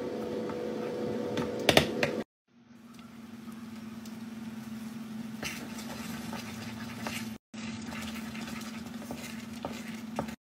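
A wooden spoon stirring thick saleeg (rice cooked in milk) in a pot, with soft scrapes and clicks against the pot over a steady low hum. The sound drops out briefly twice.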